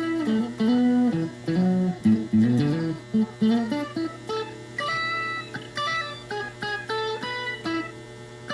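Electric guitar played through a Rowin Harmonizer pitch-shifting pedal: a melodic single-note line, low in the first half and climbing higher after about four seconds, over a steady amp hum.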